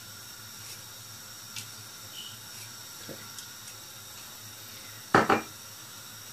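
Steady faint hiss of a pan of rice boiling on the stove. About five seconds in, a sharp double knock with a short ring, the loudest sound.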